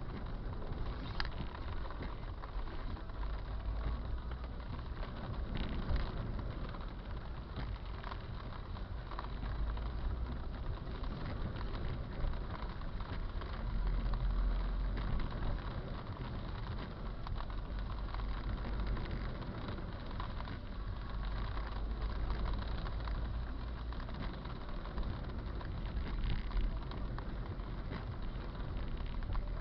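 Heavy rain falling steadily, a continuous hiss with a strong low rumble underneath and a few faint ticks of drops.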